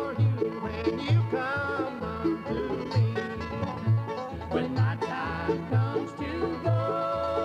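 Instrumental country music played from an old tape: plucked strings over a steady, evenly spaced bass beat.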